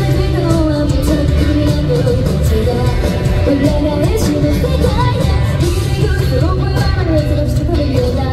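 Live rock band in a large hall: a female lead vocalist singing a melodic line over electric guitar, bass and drums, heard loud through the PA.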